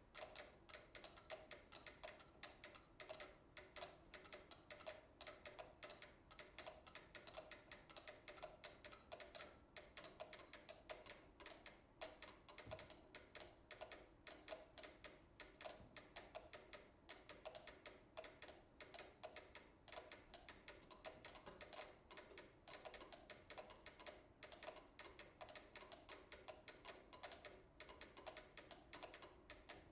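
Four pyramid-shaped mechanical metronomes ticking together at different tempos, set to 60, 88, 120 and 208 beats a minute. Their quiet clicks overlap in a dense, shifting, uneven pattern.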